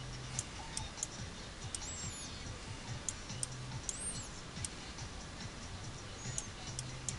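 Computer mouse clicking, sharp single clicks at irregular intervals of roughly one a second, as vertices are picked and dragged.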